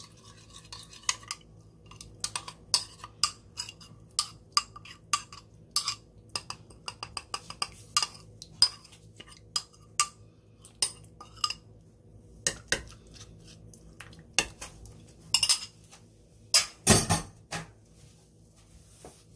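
Spoon clinking and scraping against a bowl as thick chili seasoning is scraped out onto the fish: a run of sharp, ringing clinks, roughly two a second, with a louder clatter near the end.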